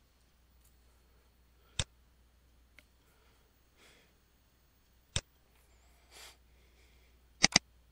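Computer mouse clicking: a single click about two seconds in, another about five seconds in, and a quick double click near the end.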